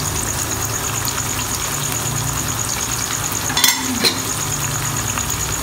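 Beef pieces frying in hot oil in a non-stick frying pan, a steady sizzle with two sharp clicks a little over halfway through.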